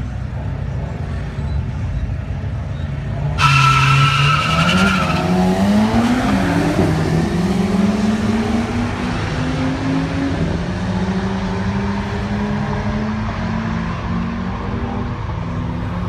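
Drag-race launch of a turbocharged 4.0-litre inline-six FPV F6. The engine rumbles at the line, then about three seconds in it launches with a brief tyre squeal. Engine speed climbs and drops back through several gear changes, then the engine note fades as the car runs away down the strip, with a second car's engine alongside.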